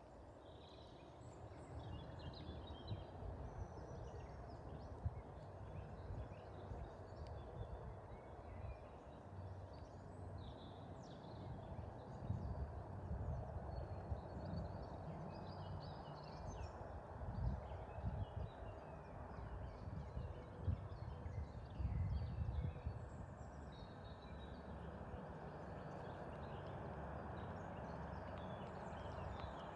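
Birds chirping in short scattered calls over a low, uneven rumble.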